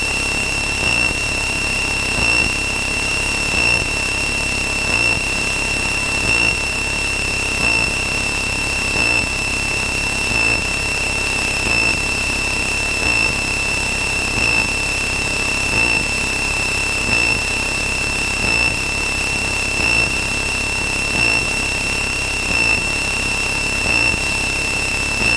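Cockpit sound of a Cessna 162 Skycatcher in flight: a steady high-pitched tone sits over the even drone of its Continental O-200 engine and propeller. A faint pulse repeats about every second and a half.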